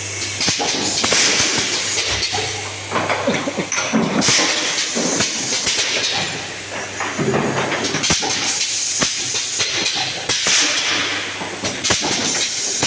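Automatic confetti filling machine running through its cycle: repeated bursts of air hiss, many mechanical clicks and clacks, and a steady low hum underneath.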